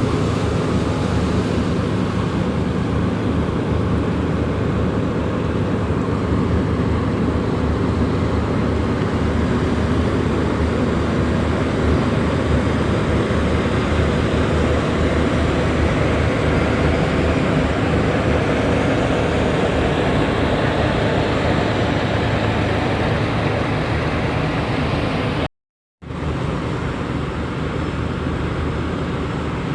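Marine diesel engine running steadily during a ship's undocking with a tugboat, a deep drone with a rushing noise over it. It cuts out for about half a second near the end, then carries on slightly quieter.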